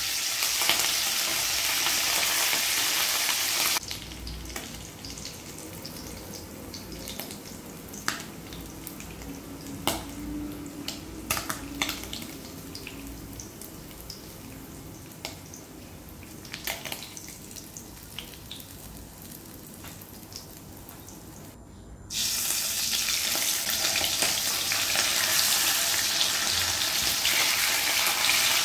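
Fish frying in a pan of hot cooking oil, a loud, steady sizzle. After about four seconds it cuts to a much quieter stretch with scattered pops and clicks, and the full sizzle comes back suddenly about three-quarters of the way through.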